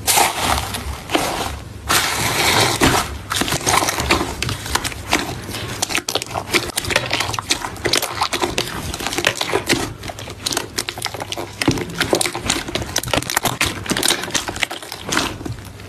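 Slime being squeezed and poked by hand, making a dense, irregular run of small crackles and pops.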